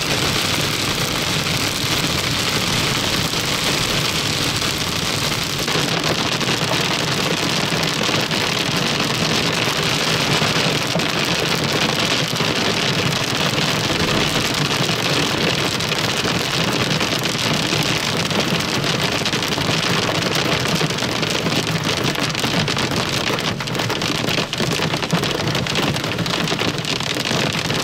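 Heavy rain falling from a severe thunderstorm: a steady, dense hiss of many drops that starts abruptly and holds without a break.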